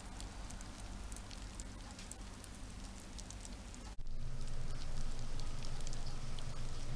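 Red wiggler composting worms moving through moist bedding in a worm bin, heard as faint, irregular crackling and ticking. A steady low hum comes up abruptly about four seconds in.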